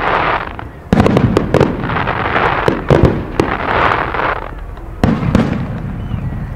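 Fireworks display with aerial shells of up to 3 inch: a dense run of sharp bangs and launch shots with a loud hissing, crackling rush between them. It briefly thins out, then resumes with a loud burst about a second in.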